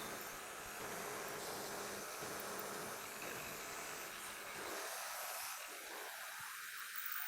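Milling machine running a 3/8-inch roughing end mill through a shallow first cut in a plate: a steady, even, mostly high-pitched noise whose lower part thins out about five seconds in.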